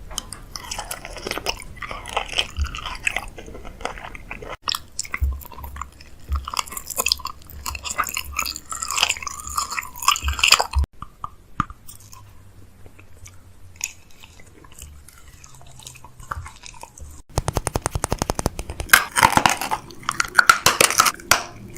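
Crunching and crinkling handling sounds in several short cut-together clips, with a fast run of evenly spaced clicks about two thirds of the way in.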